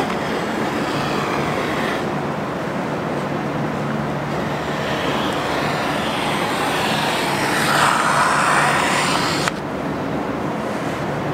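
Handheld vinyl cutter drawn along 3M 2080 vinyl wrap film, a scratchy slicing that is loudest from about seven and a half to nine and a half seconds, then stops abruptly. Under it runs a steady rushing noise with a low hum.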